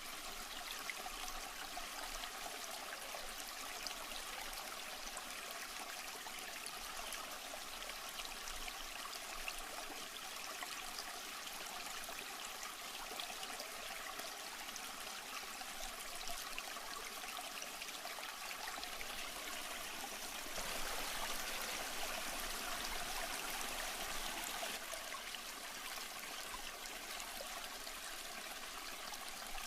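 Steady trickling and splashing of water, typical of an aquarium filter's return flow, getting somewhat louder for a few seconds about two-thirds of the way through.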